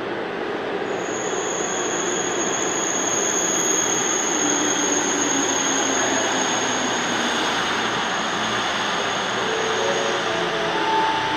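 Busan Metro Line 1 subway train arriving and slowing along the platform: a steady rumble of wheels on rail with a high-pitched squeal from about a second in that stops shortly before the end. A few short, lower tones come in near the end as it slows.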